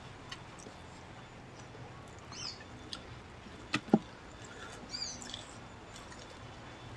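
Faint chirps of small birds: a short falling call about two and a half seconds in and a few more about five seconds in, over a quiet background. Two short sharp clicks near the middle are the loudest sounds.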